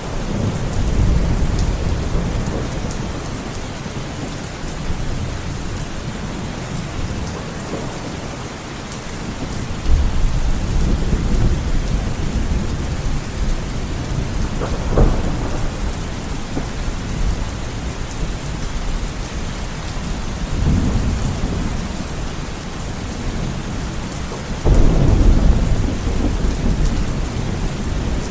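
Heavy rain pouring steadily, with deep low rumbles swelling up every few seconds, the strongest about a second in and near the end.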